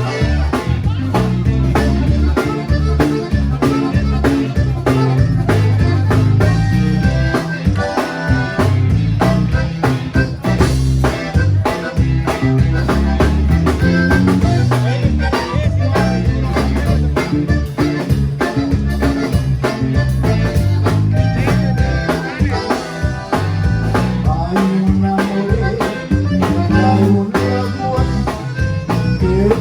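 Live Tejano conjunto band playing, with button accordion and bajo sexto over bass and drums, in a steady dance rhythm.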